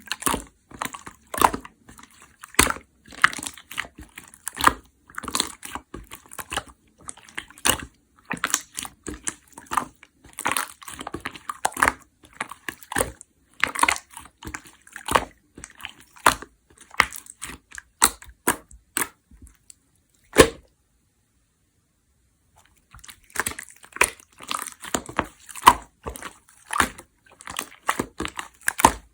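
Clear slime being worked by hand, making a dense, irregular run of sticky wet clicks and pops. About two-thirds of the way through the sound cuts out completely for about two seconds, then resumes.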